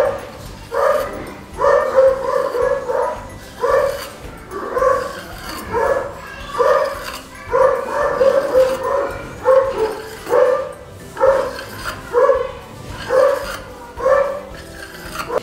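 A dog barking over and over, short barks at about one a second.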